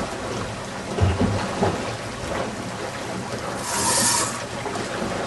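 Wind buffeting the microphone on an open boat over the wash of river water, with a low thump about a second in and a hissing gust around four seconds in.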